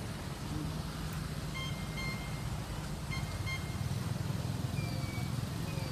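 A motor vehicle engine running steadily at a low idle, with four short electronic beeps in two pairs, about two and three seconds in.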